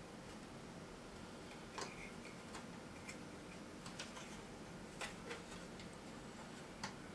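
Scattered light clicks and taps, about seven spread unevenly, from small parts and screws being handled while a boombox's case is fitted back together.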